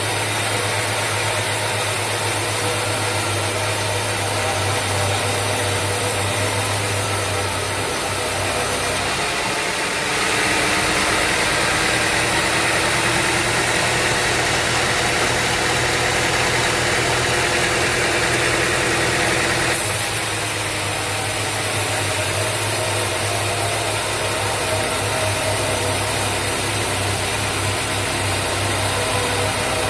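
Sawmill machinery running with a steady hum. From about a third of the way in until about two thirds, a louder, higher hissing layer joins it, along with a slowly rising tone, then drops away again.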